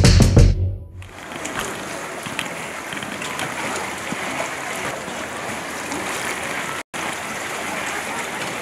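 A music track ends about half a second in, then water laps and sloshes as a steady wash of noise with small splashes, cutting out for an instant about seven seconds in.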